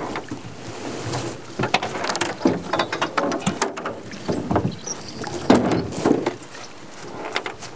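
Netting being hauled hand over hand over the side of a small boat: irregular knocks and clatter of the net and gear against the hull, with swishing and scraping between them and a sharper knock about five and a half seconds in.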